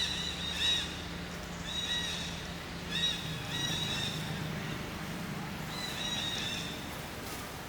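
Monkey giving short, high-pitched squealing calls in several clusters, the last about six seconds in, over a steady low hum.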